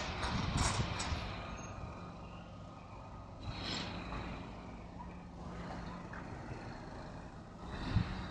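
A few footsteps, then a steady low engine hum with a faint hiss, most likely a vehicle engine running somewhere off-camera; a brief louder swell comes about four seconds in and a low thump near the end.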